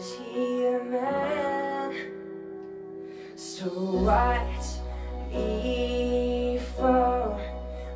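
A young male singer performing a slow ballad, accompanied by chords played on an electronic keyboard. A deep bass note comes in about halfway through.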